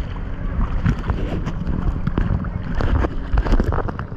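Steady low engine hum with wind noise and scattered knocks over it.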